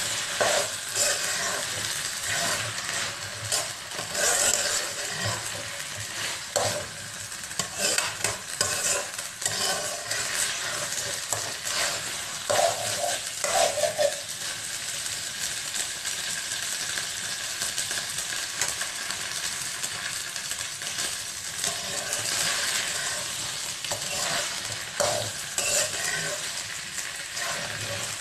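Metal spatula stirring and scraping sweet rice around a wok, with frequent scrapes and knocks against the pan over a steady sizzle of the rice frying. The scraping eases off for several seconds midway, leaving mostly the sizzle.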